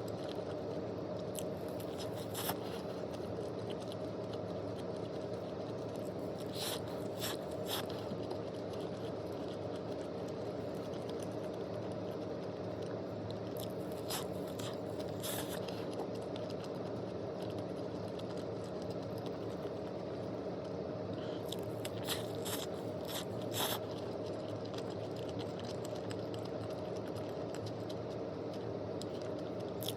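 Steady background hum with a few scattered short clicks and scrapes, several bunched together near the end.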